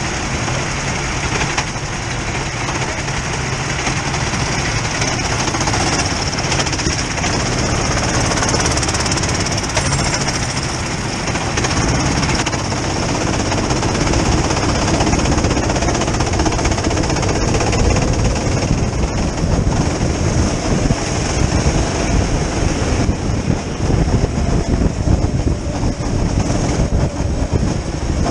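Rental go-kart engines running close by, the onboard kart's own engine among several others, as the kart pulls away from the pit lane and out onto the track.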